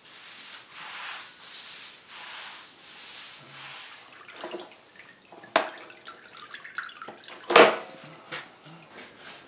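Wet string mop swished back and forth over a concrete floor in quick repeated strokes. It is then worked in a plastic mop bucket's wringer, with water sloshing and two sharp clacks from the wringer.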